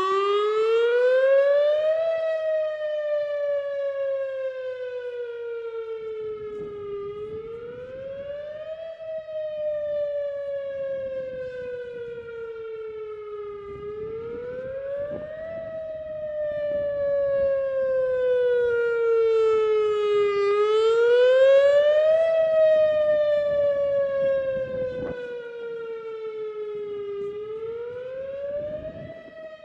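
Whelen WS-2000R outdoor warning siren sounding its wail signal: one tone with many overtones rising quickly, then falling slowly, repeating about every seven seconds. Its volume slowly swells and fades.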